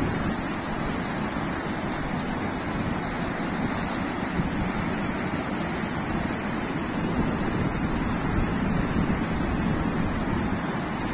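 Fast-flowing floodwater rushing steadily, with wind on the microphone.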